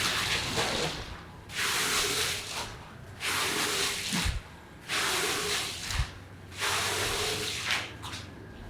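A carpet being cleaned in rhythmic sweeping passes: about five hissing strokes, roughly one every one and a half seconds, each lasting about a second.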